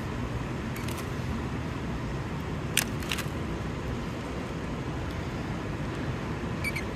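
Steady low rumble of a large hall's background noise, with a few sharp taps, the loudest pair about three seconds in.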